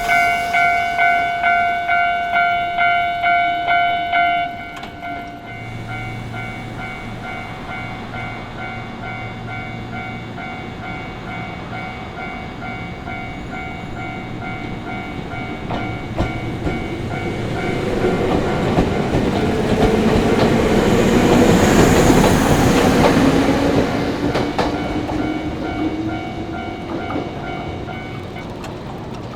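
Japanese railway crossing bell ringing in a steady, fast repeated clang, loud for the first few seconds and then fainter. Over it a Nagareyama Line electric train approaches, passes over the crossing with wheel clatter, loudest about three-quarters of the way through, and fades away.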